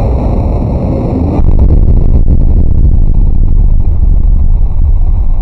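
Sugar-dust explosion in a clear test tube, set off by a high-voltage spark and heard slowed down: a long, loud, low rumble that gets louder about a second and a half in.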